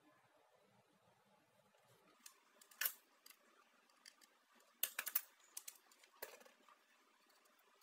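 Irregular sharp clicks and taps of small hard parts being handled, a loose cluster of them between about two and six and a half seconds in, with near quiet around them.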